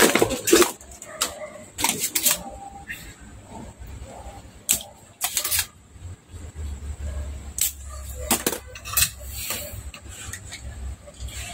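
A string of irregular sharp clicks and snaps from a spring-loaded desoldering pump being cocked and fired to suck solder off a capacitor's leads on a power supply circuit board, with board-handling knocks and a low hum in the middle.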